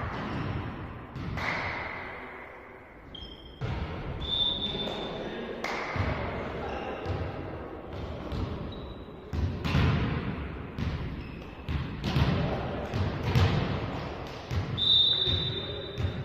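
Indoor volleyball play: the ball thudding off hands and the floor again and again at irregular intervals, with a few short high squeaks and players' voices.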